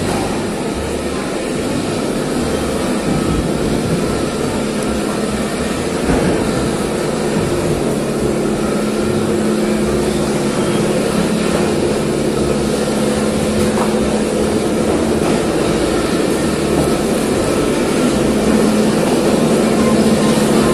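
Steady, loud mechanical hum and rumble of a large fish market hall, a continuous drone with a low steady tone and no breaks.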